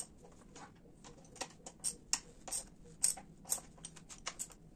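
Light metallic clicks and ticks, irregular, about two or three a second, from a wrench being fitted to and worked on the upper triple-clamp bolts of a Honda XR250 Tornado's front fork to loosen them.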